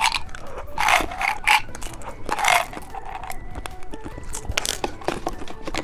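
Plastic candy packaging crinkling and clicking as it is handled and opened, in short rustling bursts with small ticks between.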